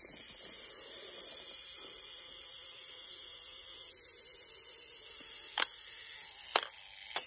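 Clockwork screw-in mechanical self-timer running down on a film SLR's shutter button, a steady high whirr, with three sharp clicks in the last two seconds.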